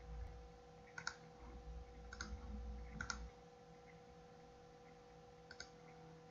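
Faint computer mouse clicks: three press-and-release clicks about a second apart, then one more about five and a half seconds in, over a steady electrical hum.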